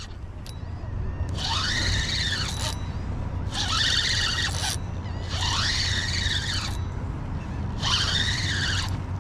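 Spinning reel whining in four pulses of about a second each, its pitch rising and falling within each pulse, under the strain of a heavy fish: a stingray hooked by the tail being fought in.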